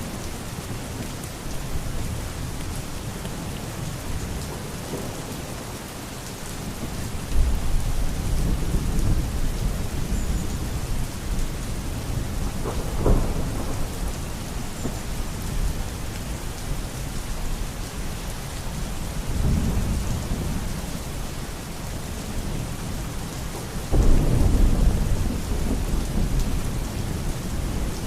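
Steady heavy rain with rolling thunder: a low rumble comes in about a quarter of the way through, a sharper crack near the middle, and the loudest rumble starts suddenly near the end.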